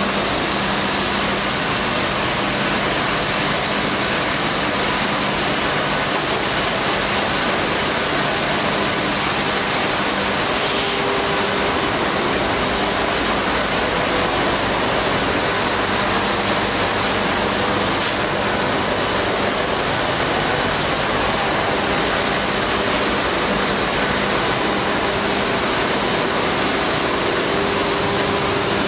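Steady rushing noise of woodworking machinery running, with a faint low hum underneath.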